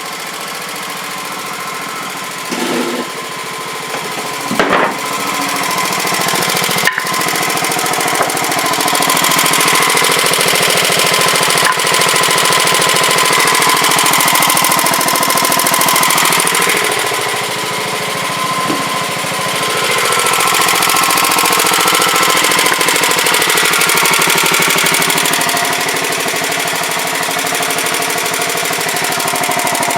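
Sears Suburban garden tractor's engine running with a rapid hammering beat, its pitch drifting up and down. A few sharp knocks come in the first seven seconds, it gets louder about seven seconds in, and it eases briefly around seventeen seconds.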